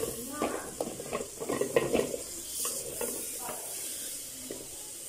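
Chunks of raw bottle gourd dropped into a metal pot of hot frying masala. The pieces clatter against the pot and each other for about the first three seconds, then the masala keeps sizzling quietly.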